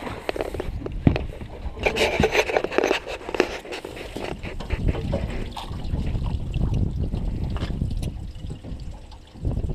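Water splashing and sloshing beside a small fishing boat, busiest about two to three seconds in, with a few sharp knocks. Later there is a low rumble of wind on the microphone.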